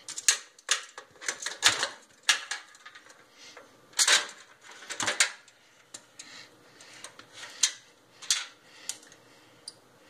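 Steel tape measure being handled and set against the microwave's interior: a run of irregular sharp clicks and taps, some louder than others.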